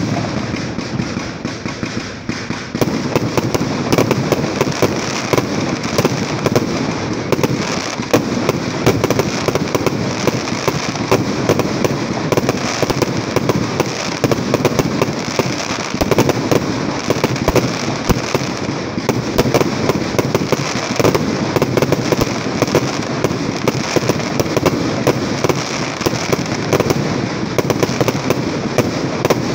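Aerial fireworks display: a dense, continuous barrage of shell bursts and crackling that starts abruptly and thickens about three seconds in.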